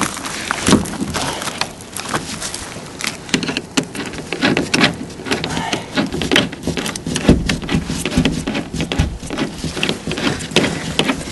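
Irregular crackling, rustling and knocking as insulated flexible air duct is pulled and fitted by hand.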